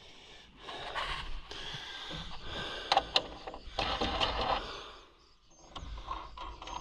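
Handling noise from hands working on electric fence charger wiring and hardware: several bouts of scraping and rustling, with a few sharp clicks about three seconds in.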